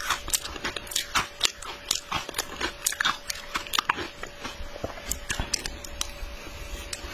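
Shaved ice dusted with matcha powder being crunched and chewed in the mouth: a quick, irregular run of sharp crunches and crackles, over a faint steady hum.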